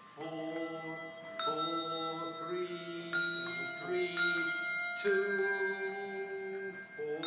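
Handbells being rung by a group: several bells are struck together every second or two, and each set of notes rings on and overlaps the next.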